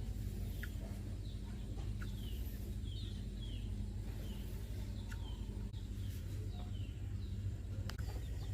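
A small bird's short, downward-sliding chirps, repeated about once or twice a second, over a steady low rumble.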